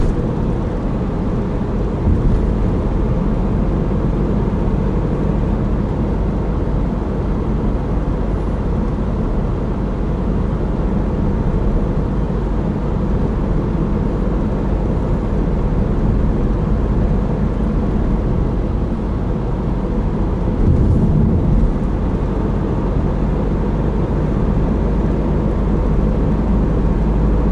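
A car's engine and tyres running at a steady cruising speed, heard from inside the cabin as a low steady rumble, with a brief louder bump about three quarters of the way through.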